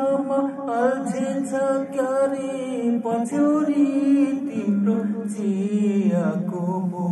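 A man singing an old Nepali song close into a handheld microphone, his voice sliding and bending between notes, over a steady sustained musical accompaniment.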